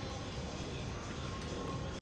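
Steady background noise of a gym hall, with faint music playing.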